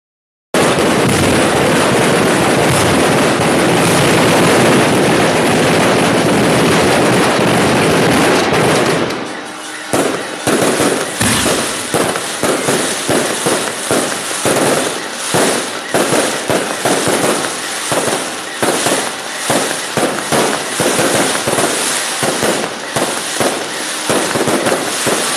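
A barrage of festival firecrackers. For about the first nine seconds it is a dense, unbroken crackle; then it turns into separate loud bangs going off irregularly, a few each second.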